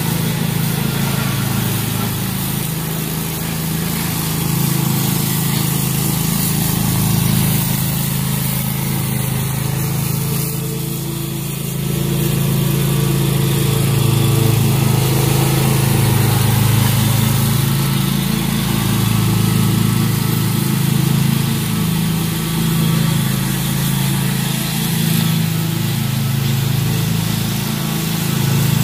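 Commercial walk-behind lawn mower engine running steadily under mowing load, with a slight rise and fall in pitch.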